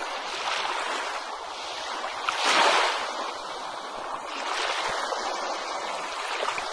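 Ocean surf washing onto a beach: a steady rush of water that swells and fades, with the biggest wave breaking about two and a half seconds in and a smaller swell around five seconds.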